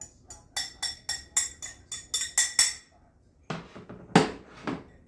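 Kitchen utensils clattering: a quick run of sharp, ringing metallic taps, about four a second, that stops near the middle, then two or three louder clunks.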